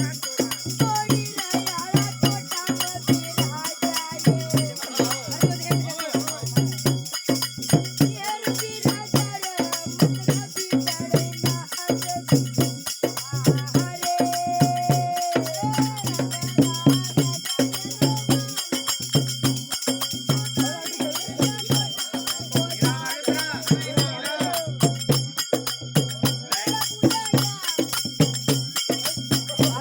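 Live folk devotional music: evenly beaten percussion with a jingling rattle over a steady low drone, with a voice singing a wavering melody through much of it.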